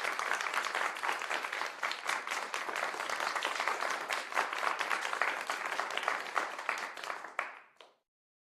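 Audience applause: many hands clapping densely and steadily, which dies away near the end.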